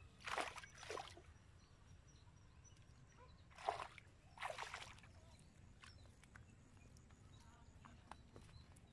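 Short splashes of shallow river water as feet wade and a plastic bottle trap is tossed in. There are four brief splashes, the loudest about three and a half seconds in.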